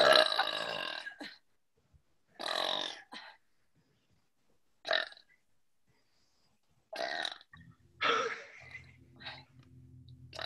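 A woman belching on purpose in a string of about six separate burps, a second or two apart, the first the loudest and longest.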